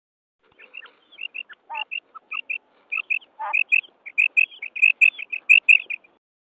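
Female quail calling: a run of short, high notes, mostly in quick pairs, growing louder toward the end, with two lower, rougher notes early in the run.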